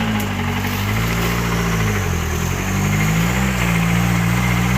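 A 4x4 off-road vehicle's engine running. The revs drop briefly near the start, dip deeper about two seconds in, then climb back and hold steady.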